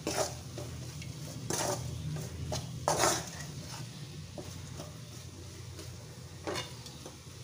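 Steel spoon stirring and scraping thick spiced onion-tomato masala around a metal kadai, with a few sharp scrapes against the pan, loudest about one and a half and three seconds in.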